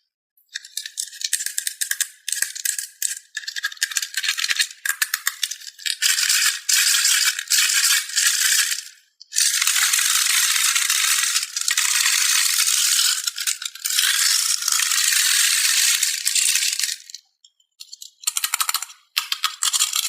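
Many small hollow plastic balls clattering and rattling against each other as they are poured and stirred, in long dense runs with brief pauses about nine and seventeen seconds in.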